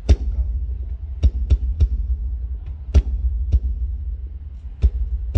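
Kick drum struck one hit at a time during a sound check, about seven deep booming thumps at uneven spacing, played through the PA.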